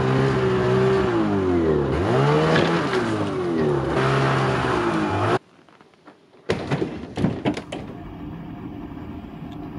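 Ski-Doo snowmobile engine revving as it is ridden up the ramp into an enclosed trailer, its pitch rising and falling several times; the sound cuts off abruptly about five seconds in. After a second of near silence come a few clicks and knocks over a quieter steady hum.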